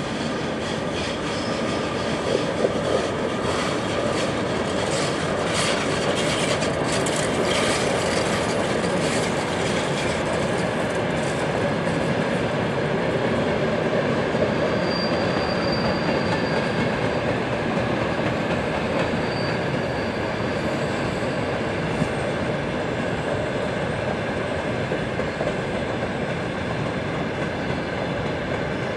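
A long freight train of open wagons rolling steadily past. The wheels click sharply over the rail joints in the first half, and two brief high-pitched squeals come from the wheels about halfway through.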